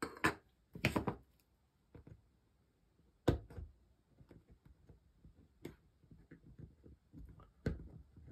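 Small sharp clicks and ticks of a jumper wire and a metal tool against a plastic solderless breadboard as the wire is pushed into its holes, coming at irregular intervals with five or so louder clicks.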